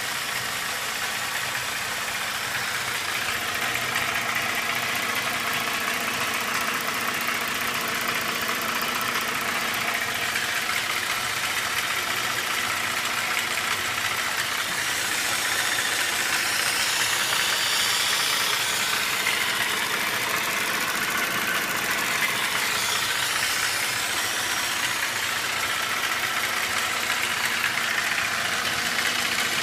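Holden VZ Alloytec V6 engine idling steadily, with a noise that the owner asks might be lifter noise.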